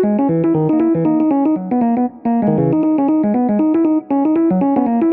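Background music: a quick melody of short keyboard notes over a lower line of notes.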